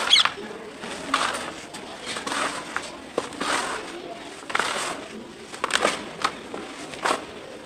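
Hands crumbling and dropping handfuls of dry red dirt in a plastic tub: repeated soft crunches and pouring rustles, roughly one every second.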